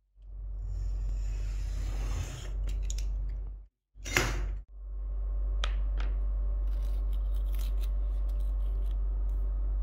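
Masking tape being pulled off its roll and pressed down on a cutting mat, then a utility knife drawn once along a metal ruler to slice the strip, a loud short scrape. Light ticks and handling noises follow over a steady low hum.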